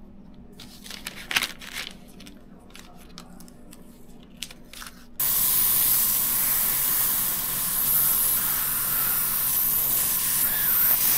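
Gravity-feed airbrush spraying paint. It gives a few brief hisses, then about five seconds in it opens up into a loud, steady hiss of air and paint that runs on.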